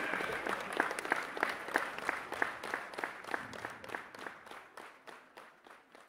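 Applause: many hands clapping, with sharp individual claps standing out at about three a second. It fades steadily down to near silence by the end.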